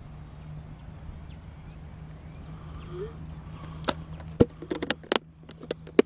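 A steady low hum under faint outdoor background, then, from about four seconds in, a quick run of about ten sharp clicks and knocks.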